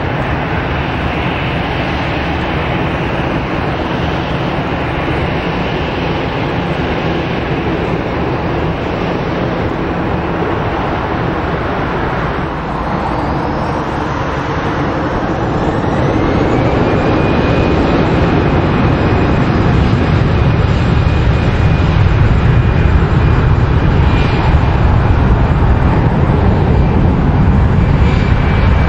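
Airbus A320 jet engines running as the airliner rolls onto the runway, then spooling up for takeoff about halfway through: a whine rises and holds as the engine noise grows louder.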